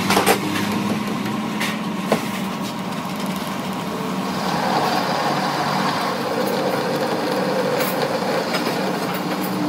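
Metal lathe running with its four-jaw chuck spinning, a steady hum, while a lathe tool cuts the end of a metal shaft. There are a few sharp clicks in the first two seconds, and a hissing cutting noise joins the hum from about four and a half seconds in.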